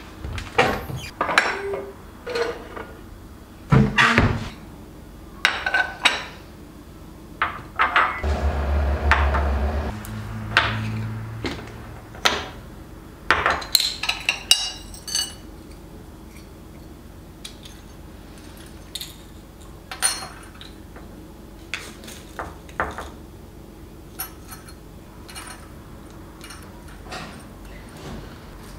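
Kitchen handling sounds: a run of separate clinks, knocks and taps of dishes and utensils being picked up and set down, busiest in the first half and sparser and fainter later, with a short louder noisy stretch about eight seconds in.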